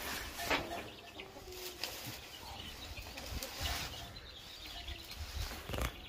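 Rustling and crackling of leafy green cattle fodder being gathered up by hand, in several short bursts.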